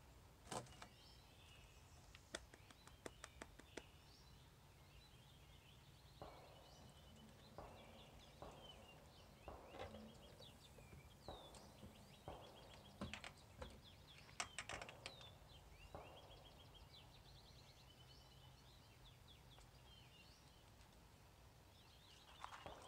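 Faint outdoor ambience of songbirds chirping on and off, with a few scattered faint clicks, including a quick run of them about three seconds in. Near the end, the sound of a raccoon eating from a plastic tub begins.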